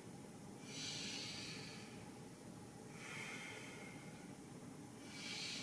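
A person breathing slowly and deeply through the nose while holding a stretch: three long breaths in and out, about a second in, a little past three seconds and near the end.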